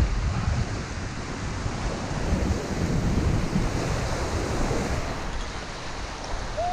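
Ocean waves surging and breaking over the rocks at the foot of a jetty, the wash swelling and easing, with wind buffeting the microphone.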